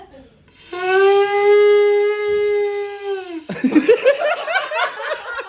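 Conch shell (shankh) blown in one held note of nearly three seconds that sags in pitch as the breath gives out, followed by laughter.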